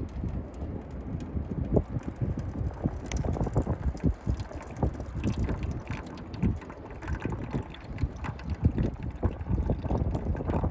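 Strong gusty wind buffeting the microphone: an uneven low rumble with frequent irregular pops as gusts hit.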